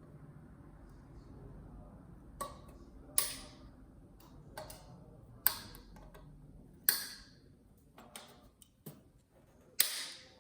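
Sharp clicks and snaps, about eight of them, coming roughly once a second after the first couple of seconds, as a heat sink is pried off a TV's main circuit board.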